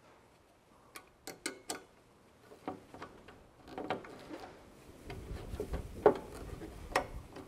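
Irregular sharp metallic clicks from a hex driver turning a galled stainless steel bolt back and forth under pressure, the seized threads catching and slipping. The loudest click comes about six seconds in, with a faint low rumble of handling in the last couple of seconds.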